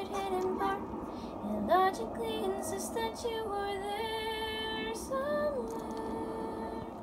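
A woman singing a slow melody of long held notes over background music. A puppy gives a brief rising whimper a little under two seconds in.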